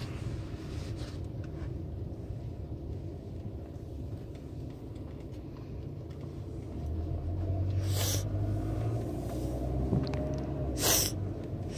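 Low, steady rumble of a small car's engine and road noise heard inside the cabin, growing louder about seven seconds in. Two short breathy noises cut in, about eight and eleven seconds in.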